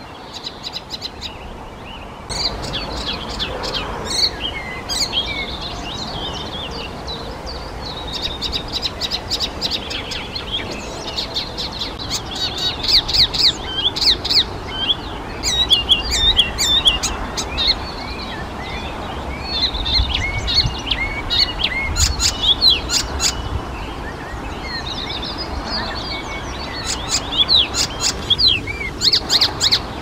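Icterine warbler singing: a long, fast, varied run of high chattering and whistled notes with short breaks, getting louder about two seconds in.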